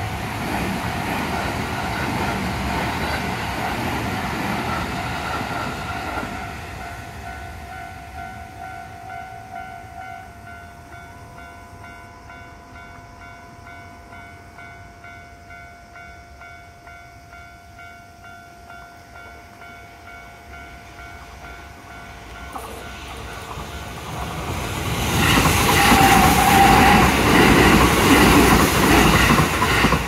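Japanese level-crossing warning bell ringing steadily while a train runs past, its noise fading away within the first several seconds. Near the end a second train passes close by, louder, with clickety-clack from its wheels.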